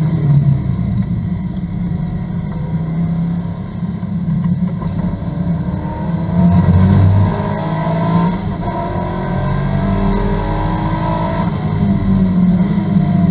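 Corvette race car's V8 engine heard from inside the cockpit, easing off through a slow corner, then accelerating hard from about six seconds in, its pitch rising.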